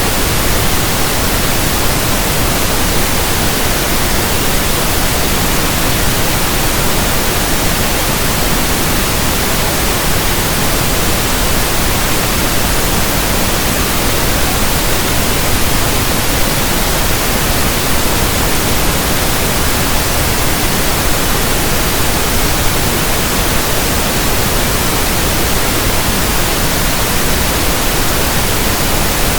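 Loud, steady synthetic pink noise: an even hiss spread across all pitches that does not change.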